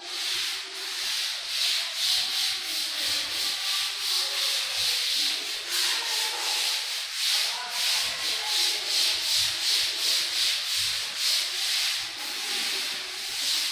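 A blackboard duster rubbing chalk off a chalkboard in quick back-and-forth strokes, a few a second, with a scratchy hiss.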